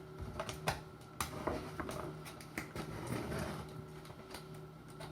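Scattered clicks, taps and rustles of cardboard packaging being handled and opened by hand, a few sharper knocks among them.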